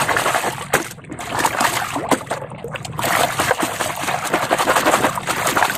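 Muddy water splashing and sloshing as a toy car is scrubbed and swished by hand in it: a busy run of splashes with brief lulls about one and two seconds in.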